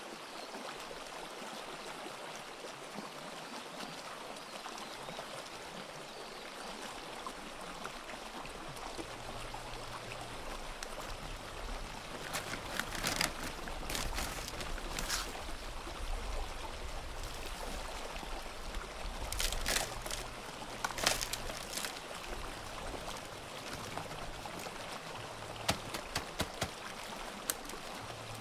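Sea waves washing on a shore: a steady rush of surf that swells louder several times in the middle, with a few short clicks near the end.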